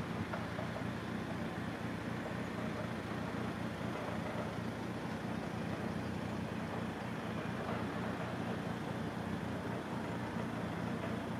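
An engine idling steadily: a low, even hum that does not change.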